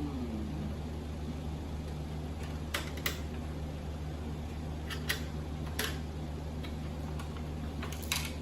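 Scattered light clicks and taps from a VCR's parts being handled and pried at during disassembly, about eight in all, over a steady low hum.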